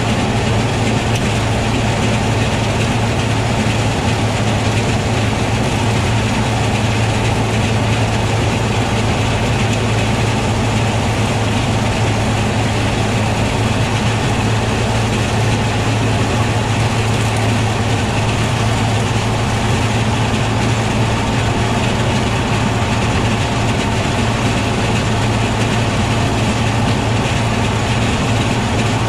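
Tractor engine running steadily under load, driving a PTO-driven John Deere flail chopper that is chopping grass: a constant low hum with a steady rushing hiss over it.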